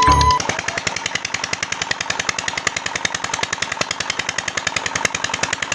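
Small stationary diesel engine driving an irrigation tube-well pump, running steadily with a fast, even knocking of about ten beats a second. Background music cuts off about half a second in.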